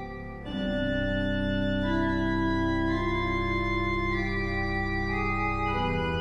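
Casavant pipe organ playing sustained chords over a deep pedal bass. About half a second in, a louder chord comes in; after that the upper notes change one at a time while the bass holds, and the bass shifts near the end.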